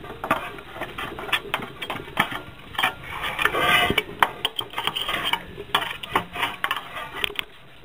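Metal clinking, scraping and rattling of hand tools and parts on a 5 hp Briggs & Stratton engine being taken apart, in irregular sharp clicks with a denser rattle about halfway through.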